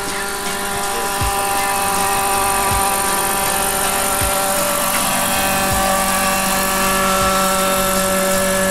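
Radio-controlled scale SA 315 Lama helicopter flying low past: a steady, loud high whine with rotor noise, growing a little louder about a second in as it comes close.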